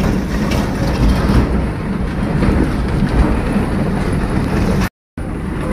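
Steady low rumble of a moving truck, heard from inside its cab: engine and road noise with loose rattling. It is broken near the end by a sudden gap of silence about a quarter second long.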